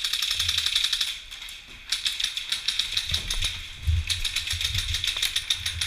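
Airsoft guns firing full-auto bursts, a fast even stream of sharp clicks: one burst about a second long, a short pause, then near-continuous firing from about two seconds in.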